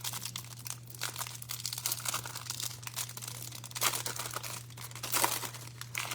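Crinkling and tearing as a hanger box of trading cards is opened, plastic wrap and packaging crackling, louder rustles about a second in, near four seconds and again just after five.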